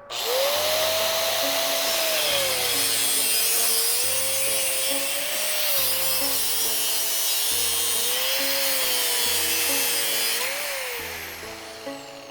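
Angle grinder cutting or grinding steel, its motor pitch sagging and recovering as it is pressed into the work, then winding down near the end.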